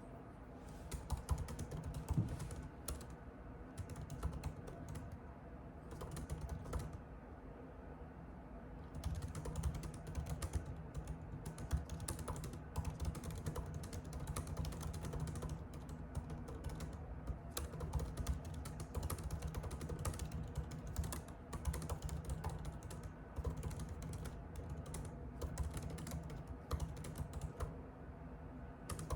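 Typing on a computer keyboard: quick, uneven runs of key clicks, with a short lull about eight seconds in, over a faint steady hum.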